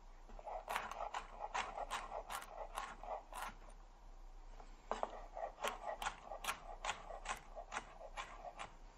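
Kitchen knife slicing a red chilli pepper on a wooden cutting board: faint quick knocks of the blade on the board, about three a second, in two runs with a short pause about four seconds in.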